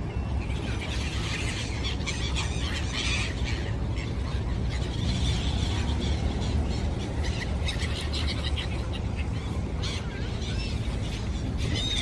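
A flock of gulls calling, many short overlapping squealing cries that come in flurries, over a steady low rumble.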